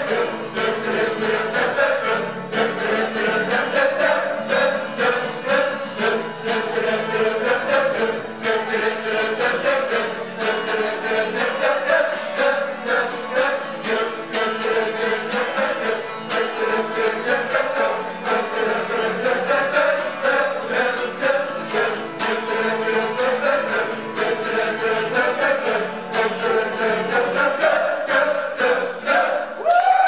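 An amateur group of men and women singing a melody together in chorus.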